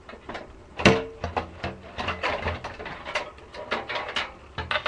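Computer case parts being handled and pushed into place: a run of plastic and metal clicks and knocks, the loudest a sharp knock with a short metallic ring about a second in.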